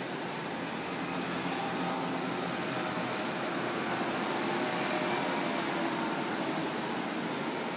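Distant drone of a powered paraglider's engine over a steady hiss of surf, swelling slightly a few seconds in as the craft passes.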